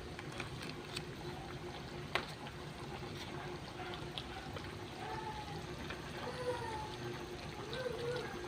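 Water pouring and trickling, over a steady low hum with a few light clicks.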